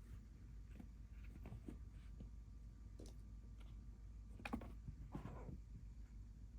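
Kitten purring, a faint, steady low rumble, with scattered small clicks and taps over it; the sharpest tap comes a little past halfway.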